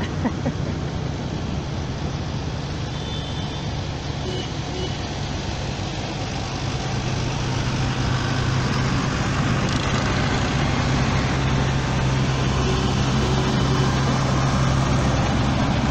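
A procession of tractors driving past, their engines running with a steady low drone that grows louder about halfway through as a large modern tractor passes close.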